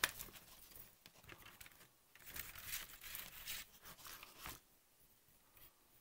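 Plastic model-kit sprues and a paper instruction sheet being handled: a sharp click at the start, then light rustling, crinkling and small plastic clicks that die away after about four and a half seconds.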